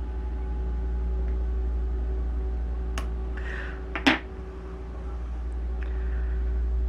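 A steady low hum throughout, with two sharp clicks about a second apart near the middle: scissors snipping off the excess hackle stalk at the head of a fly in the vise.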